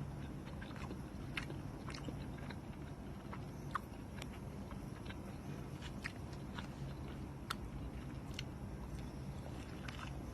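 Close-up chewing of a breakfast wrap with chicken sausage: scattered wet mouth clicks and bites over a steady low hum.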